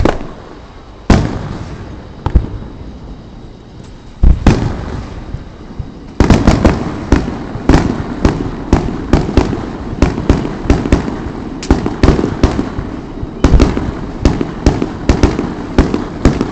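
Fireworks display: aerial shells bursting in sharp bangs, one about a second in and another about four seconds in, then a rapid string of bangs, two or three a second, from about six seconds on.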